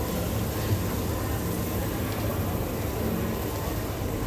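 Steady low hum and hiss at a teppanyaki griddle: beef sizzling on the hot flat-top over the drone of the grill's extraction, with a single short knock a little under a second in.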